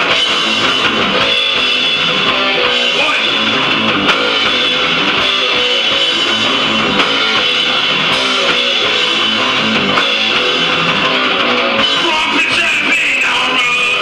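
Hardcore punk song playing loudly and without a break: electric guitar and a drum kit.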